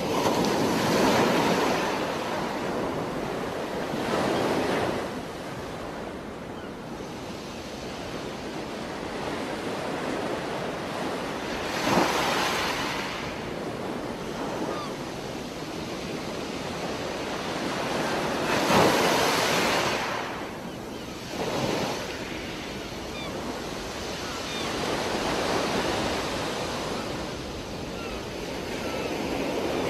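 Underwater rushing noise from a scuba diver's exhaled bubbles, swelling into a loud burst every several seconds in time with the diver's breathing.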